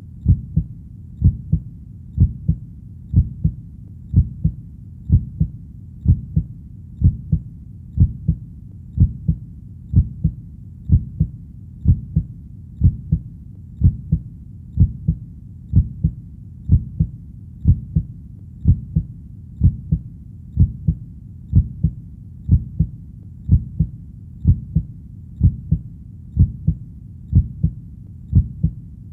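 A heartbeat: low lub-dub double thumps repeating at a steady rate of about one a second, roughly 60 beats a minute.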